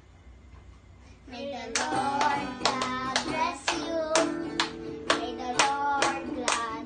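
Children singing together to a strummed acoustic guitar, with hand claps keeping the beat about twice a second. The singing and guitar start about a second in.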